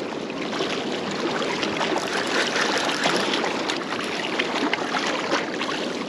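Lake water washing and lapping against the rocks of a breakwall: a steady, busy splashing with many small splashes.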